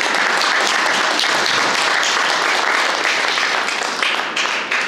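Audience applauding, a dense steady clapping that fades near the end.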